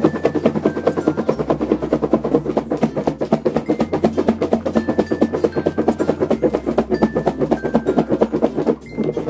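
Liputi fruits with salt and sugar rattling and knocking inside a lidded plastic Tupperware container shaken fast by hand, a quick rattle of several knocks a second that pauses briefly near the end. The fruits are being shaken to work the salt and sugar in. Background music plays under it.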